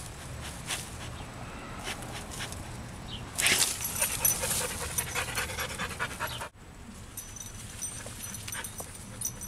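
English Springer Spaniel panting, louder for a few seconds in the middle. The sound breaks off abruptly about two-thirds through, and quieter panting follows.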